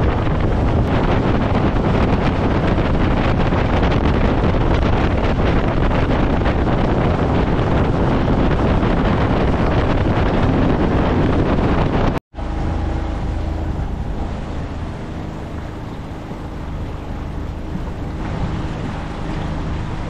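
Tow boat under way across a lake: outboard motor droning under heavy wind noise on the microphone. The sound drops out abruptly about 12 seconds in; after that the motor hum is steadier with less wind, and water rushes along the aluminum hull.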